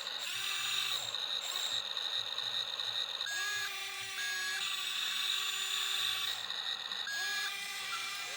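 Electric motors and hydraulic pump of a radio-controlled excavator whining steadily, the pitch shifting in steps a couple of times as the machine moves.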